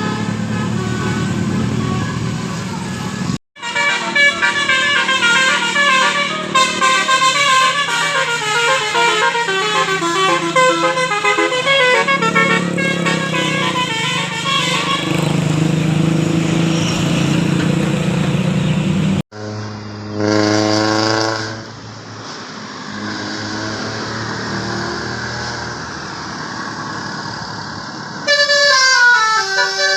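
Bus basuri telolet horns playing melodic tunes of quick stepping notes, with a bus engine running underneath. The sound breaks off abruptly twice, about three seconds in and a little past the middle, with a single held horn note after the second break and a new melodic run near the end.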